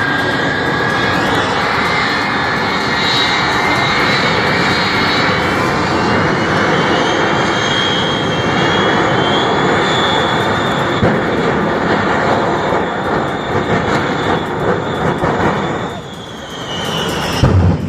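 The Shockwave jet truck's three jet engines running on afterburner: a loud, steady roar with a high turbine whistle that slides in pitch. About 16 s in the roar eases and the whistle falls, and a short low thump comes near the end.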